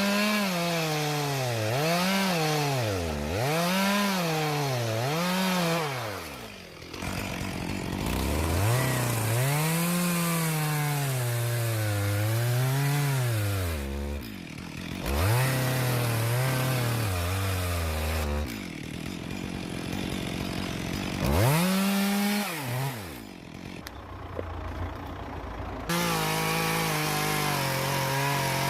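Two-stroke chainsaw running and cutting wood, its engine speed swinging up and down over and over: quick rises and falls at first, then longer swells. It drops back toward idle a few times, and near the end it holds a steady high speed.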